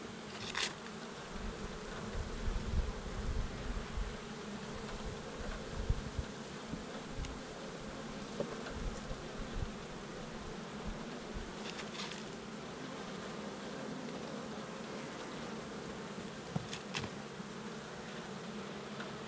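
Honeybees at an opened hive, buzzing in a steady, continuous hum, with a few faint clicks along the way.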